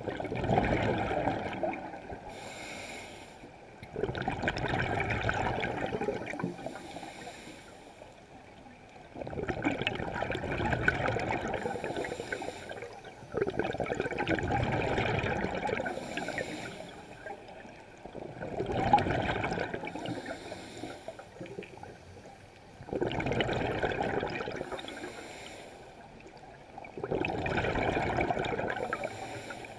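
A scuba diver breathing through a regulator underwater. A loud rush of exhaled bubbles comes about every four to five seconds, seven times, with a quieter hiss of inhalation through the regulator between them.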